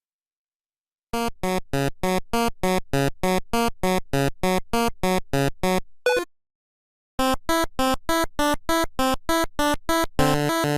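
Electronic keyboard or synthesizer playing one note repeated rapidly, about five notes a second, in two long runs separated by a short break; near the end the notes thicken into a fuller, denser sound.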